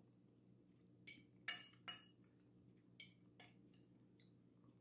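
A fork clinking against a plate, about five short clinks over a couple of seconds, the loudest about a second and a half in.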